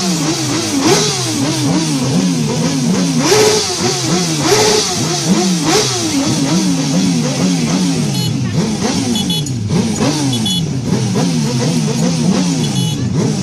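Music soundtrack layered with motorcycle engine revving: an engine note that falls in pitch again and again in quick repeated sweeps.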